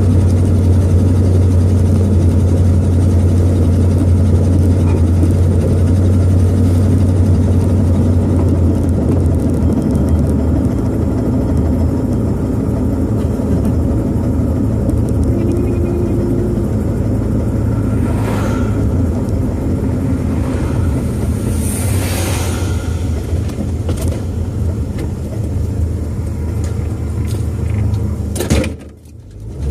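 1966 Ford Thunderbird's V8 engine and road noise at cruising speed: a steady low drone heard from inside the car, with a couple of brief whooshes partway through. The sound drops away for about a second near the end before coming back.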